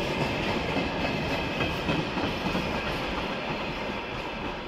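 Freight train of oil tank cars rolling past at speed, wheels clacking over the rail joints under a steady rumble. It fades slowly as the last wagons draw away.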